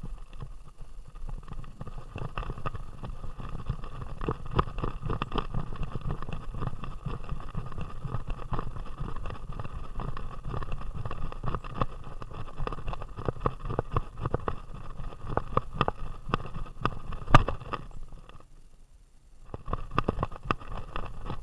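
Action camera bouncing on a running greyhound's tactical vest: a dense, irregular clatter of knocks and rubbing from the jolting mount and the dog's strides over a low rumble, with one sharp loudest knock and a brief lull near the end before the jostling starts again.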